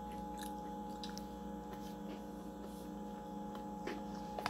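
Steady electrical mains hum made of several fixed tones, with a few faint clicks near the end.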